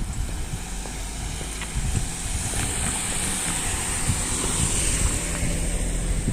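Rumble of a passing vehicle swelling and fading, with wind buffeting the microphone.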